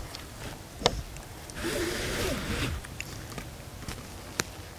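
A man's hushed whisper lasting about a second, starting near two seconds in, between two sharp clicks, one about a second in and one near the end.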